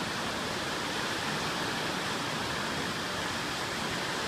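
Surf washing onto the beach, a steady even hiss with no breaks.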